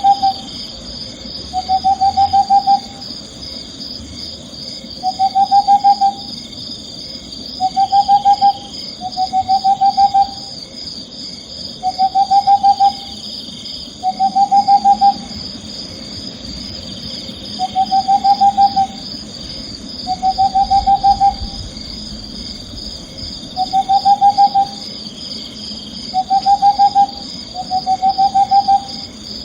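Owl calling: short trilled calls, each a fast run of notes rising slightly over about a second, repeated every two seconds or so. A steady high-pitched tone runs underneath.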